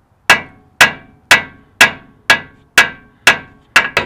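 Hammer blows on metal, about nine ringing strikes at roughly two a second with the last two close together, pounding to break a rusted part free on a Ford F-150's front suspension.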